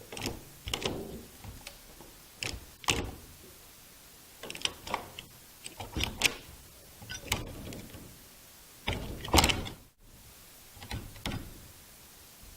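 Room door being worked in short separate takes: its metal handle, latch and lock clicking and rattling, with sharper knocks from the door itself. About seven bursts, the loudest about nine seconds in.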